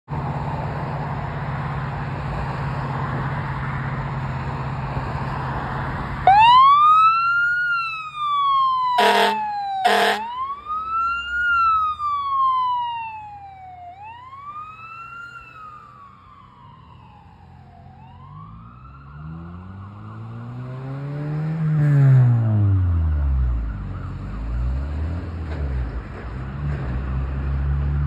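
Steady traffic noise, then about six seconds in an ambulance's electronic siren starts on wail, sweeping slowly up and down. Two short air-horn blasts sound about a second apart near the nine- and ten-second marks. The wail fades as the ambulance passes, and a deep, low siren tone swells and falls away near the end.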